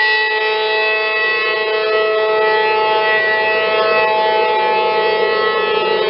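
Outdoor tornado warning siren sounding a loud, steady wail held at nearly one pitch.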